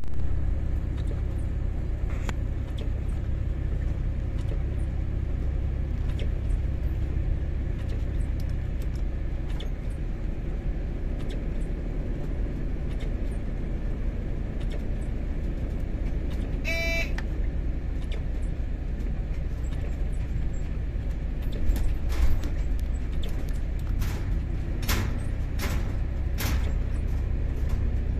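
Steady low running rumble heard from the cab of the SSP 110 SW rail vehicle as it travels along the track. There are scattered clicks throughout and a run of sharper knocks in the last several seconds. A brief pitched toot comes about halfway through.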